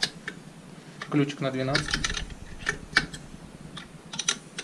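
Hand wrench tightening a nut on the back of a car alternator: a handful of sharp, scattered metal clicks and ticks.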